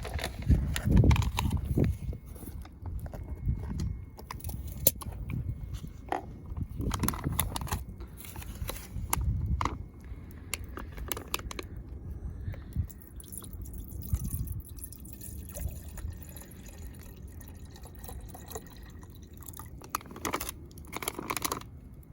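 Water dripping and trickling around a stainless steel camping kettle on a campfire, with scattered crackles and clicks over a low rumble.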